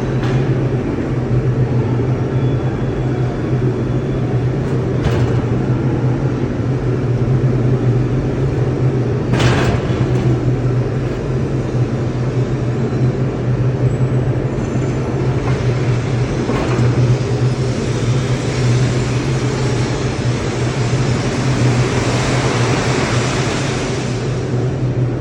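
Ladle refining furnace running at a steel plant: a loud, steady deep hum over a continuous roar, with a few sharp cracks in the first half and a rushing hiss that swells in the second half.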